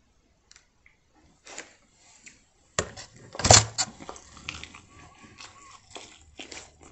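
Chicken wings being eaten by hand: handling and paper rustle, a loud rustle or knock about halfway through, then many small clicks and crackles of biting and chewing.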